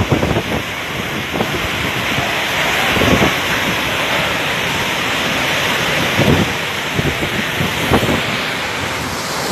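Hurricane-force wind blowing steadily with driving rain, with gusts hitting the microphone a few times.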